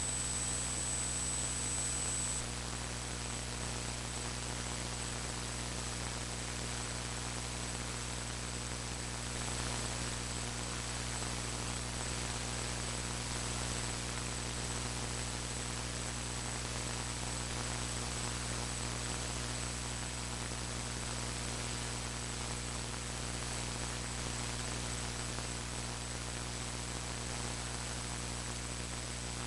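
Steady electrical mains hum mixed with hiss and static, with a thin high whine that is a little louder in the first two seconds. It is noise in the recording's audio, the sound fault the uploader warns of, not any sound of the work on screen.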